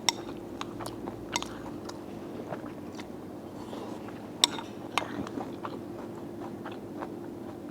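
Close-miked chewing of a mouthful of sauce-soaked mixed rice, soft wet mouth noises with scattered small clicks and a few sharper ticks, the sharpest about four and a half seconds in. A faint steady hum lies underneath.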